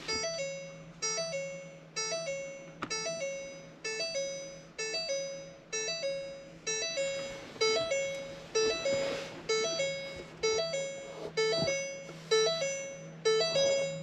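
2019 Ford Ranger's warning chime sounding over and over with the ignition on: a short two-note ding repeating just under twice a second, over a faint steady hum.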